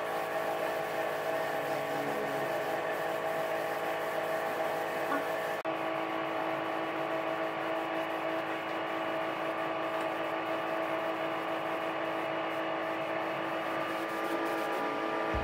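Gravity-feed air spray gun spraying a finish coat: a steady hiss of air with a steady hum underneath, briefly dipping once about five and a half seconds in.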